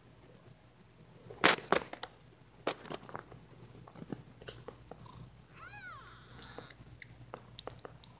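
Mother cat purring steadily while her week-old kittens nurse, with a few sharp knocks and rustles, loudest about one and a half seconds in. About six seconds in, a kitten gives one short, high mew that rises and falls.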